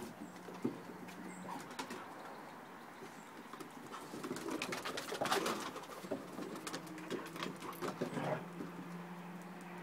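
Dogs playing on a wooden deck: paws and claws scuffling and clicking on the boards in quick irregular bursts, busiest in the middle. A faint low steady hum comes in at the start and again near the end.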